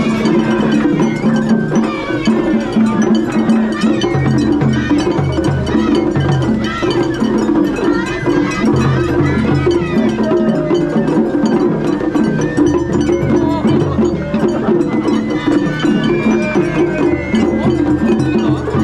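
Japanese festival-float hayashi music: taiko drums in a repeating rhythm with the bright clang of a small hand gong (kane), going on steadily.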